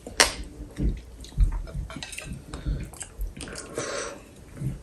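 Chopsticks clinking and scraping on plates and bowls. There are several sharp clicks, the loudest just after the start, and a few low knocks on the table.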